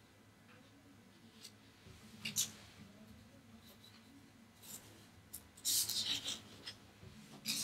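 Sheets of drawing paper rustling and scraping as they are handled, in a few short bursts, the busiest cluster about six seconds in, over a faint steady room hum.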